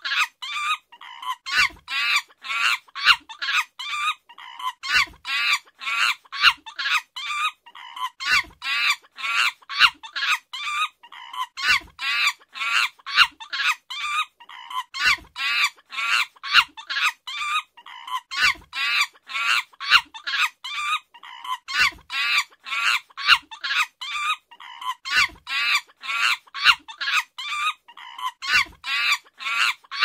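Chimpanzee calls: a fast, unbroken string of high-pitched calls, about three a second, each bending up and down in pitch.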